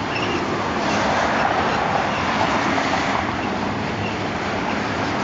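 Double-stack intermodal container train rolling past, its well cars' wheels running steadily on the rails with a few faint short squeals.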